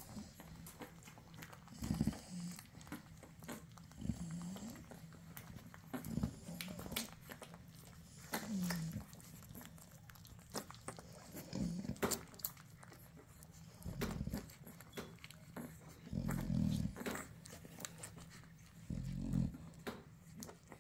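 Nano exotic American bully puppies nursing from their mother: wet sucking and smacking clicks, with short low grunts every couple of seconds.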